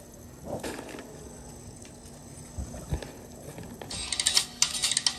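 A few soft knocks and low thumps, then about four seconds in a bright, rapid chiming jingle starts from a portable DVD player's small built-in speaker as a disc begins playing.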